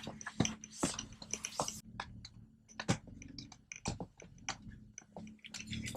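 Scattered light clicks and knocks, irregular and without rhythm, over a steady low hum.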